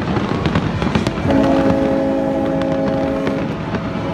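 Fireworks bursting and crackling in a dense run of sharp pops and bangs. About a second in, a steady held sound of several tones together comes in underneath.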